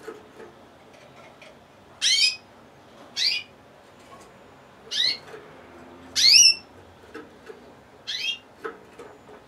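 Gloster canary giving five short, loud call notes a second or two apart, each a quick downward sweep from very high, the fourth the loudest. Faint clicks are heard between the calls.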